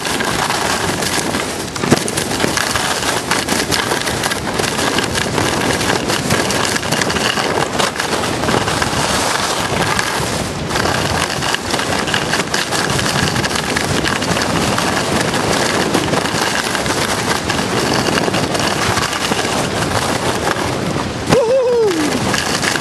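Skis running and scraping over packed snow during a downhill run: a continuous loud, crackling hiss.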